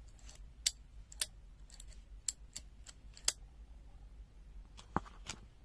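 Fujiya 230-165-BG slip joint pliers clicking as they are handled and worked open and shut: a handful of sharp clicks at irregular intervals.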